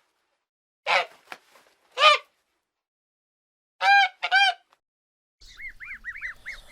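Goose honking four times, single short calls spaced a second or two apart. About five and a half seconds in, goslings start peeping: a quick run of short, high chirps that rise and fall.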